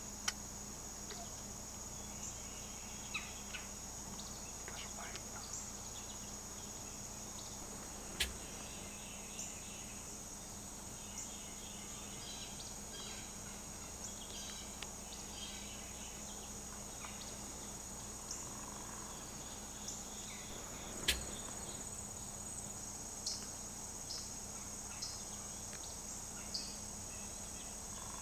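Spring woodland ambience: a steady high insect drone with scattered short bird chirps and a turkey calling faintly now and then. Two sharp clicks stand out, one about 8 seconds in and one about 21 seconds in.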